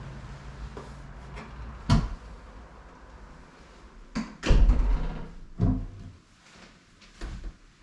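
A handful of separate knocks and clunks, about five, over a low steady hum. The loudest is a heavy thump about four and a half seconds in, and the sounds thin out toward the end.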